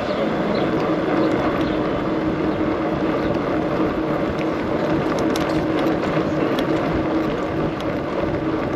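Knobby mountain-bike tyres rolling over cobblestones, a steady noisy rumble with wind on the microphone.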